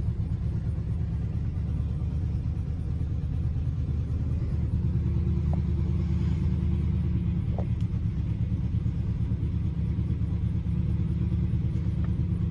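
1971 Oldsmobile Cutlass S engine idling steadily as it warms up after a start, a low, even rumble.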